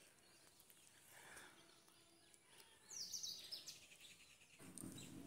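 Faint birds chirping, with a quick run of high twittering calls about three seconds in. A low, faint sound begins near the end.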